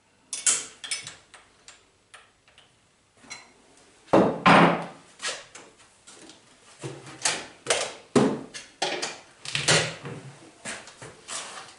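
Irregular clicks, knocks and clatter of metal tools and fittings being handled while a metal shaper is set up for a cut. The loudest knocks come about four to five seconds in.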